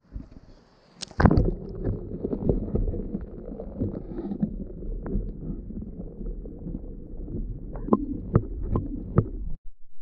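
Stream water heard through a GoPro's waterproof housing held underwater: a muffled low rumble with scattered sharp clicks and knocks. It starts about a second in and cuts off suddenly near the end.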